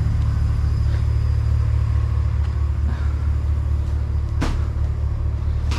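Truck engine running with a steady low rumble, and a sharp click about four and a half seconds in.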